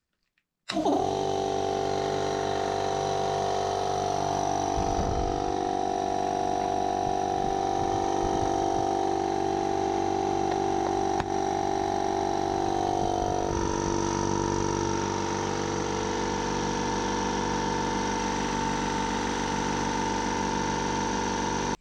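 Clarke Air Industrial 110-litre air compressor switched on: the electric motor and belt-driven pump start abruptly about a second in and run steadily, filling the tank. It is running to warm the pump before an oil change, and partway through its hum steps up slightly in pitch.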